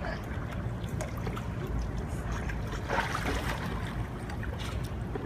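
Bloodhound puppy paddling in a pool, splashing and sloshing the water, with a louder splash about three seconds in, over a low wind rumble on the microphone.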